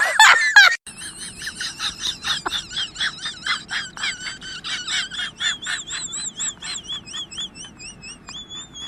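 A fast, even run of high-pitched chirps, about four a second, each wavering up and down in pitch, after a loud wailing voice that breaks off about a second in.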